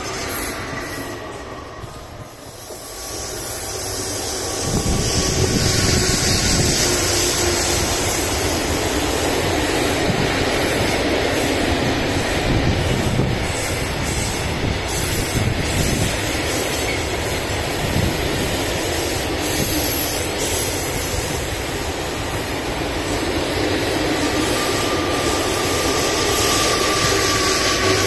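A long freight train of covered hopper wagons rolling past close by, coming up about four seconds in: a loud, steady rolling noise with wheels clattering over the rail joints. A steady whine joins near the end.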